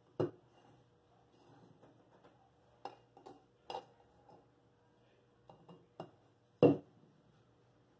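Light metallic knocks and clinks of a thin steel car oil-filter canister being handled on a workbench: about six scattered taps, the loudest near the end, over a faint steady hum.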